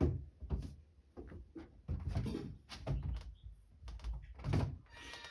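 Irregular soft knocks and thuds, about a dozen spread unevenly, with music starting right at the end.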